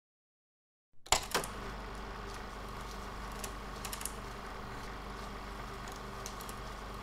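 Silence for about a second, then two or three sharp clicks as steady room tone with a low electrical hum comes in, followed by a few scattered faint clicks.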